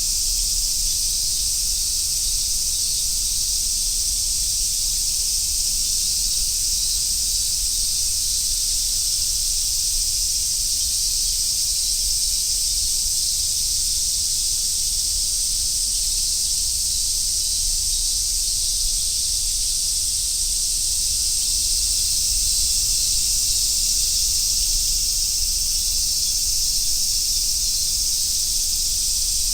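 A dense chorus of summer cicadas, a steady, unbroken high-pitched hiss.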